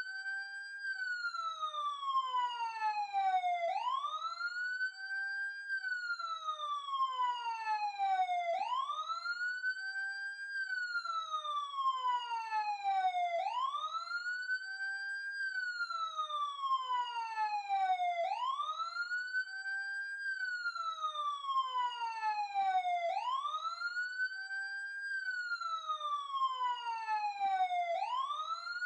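Emergency siren wailing. Each cycle rises quickly in pitch, holds briefly, then slides slowly down, repeating about every five seconds, six times in all.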